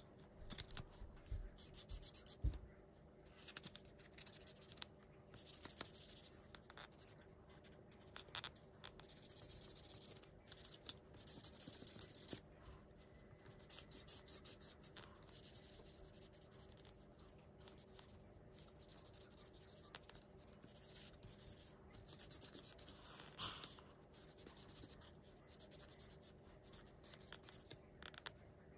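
Marker pen scratching on paper in quick back-and-forth colouring strokes, in short runs with brief pauses. There is a light knock about two and a half seconds in.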